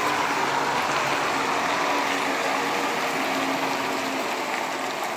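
Scania truck with trailer passing close by: a steady rush of engine and tyre noise under a faint engine hum, easing off slightly toward the end.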